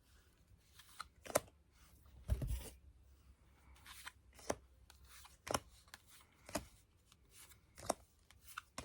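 Yu-Gi-Oh! trading cards being handled and flipped through one at a time: faint, scattered clicks and slides of card against card, with a softer low thump about two and a half seconds in.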